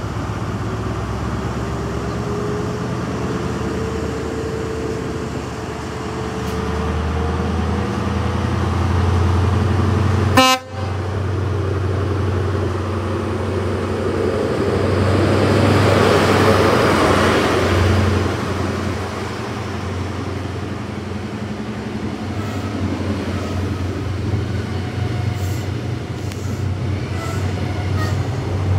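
Class 43 HST power car's diesel engine running as the train moves along the platform and passes close, with one short horn toot about ten seconds in. A rushing noise swells as the power car goes by, then the coaches roll past.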